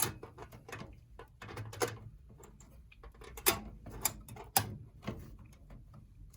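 Clicks and knocks of a motherboard being handled into a PC case, set over the standoffs and lined up with the rear I/O shield. A series of sharp clicks, the loudest three come about three and a half, four and four and a half seconds in.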